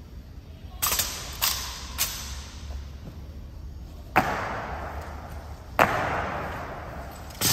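Sharp cracks and thuds of rifle drill by an honor guard, with rifles struck and slapped and boots stamped: three quick strikes about half a second apart, then three heavier strikes each leaving a long echo that dies away over more than a second.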